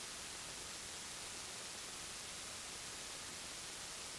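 Steady hiss, even and brightest in the highs, with no engine or propeller note to be heard: the recording's own noise floor.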